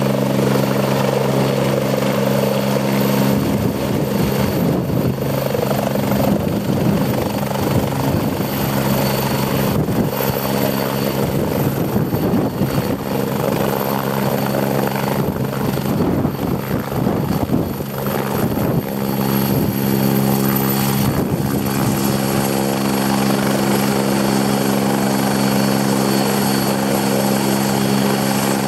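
Kazan Ansat helicopter landing, its twin turboshaft engines and rotor running with a steady low rotor beat and a high turbine whine. While it hovers low over the ground the sound turns rough and rushing for several seconds, then steadies again once it has settled. Soon after it steadies, the top of the whine drops slightly.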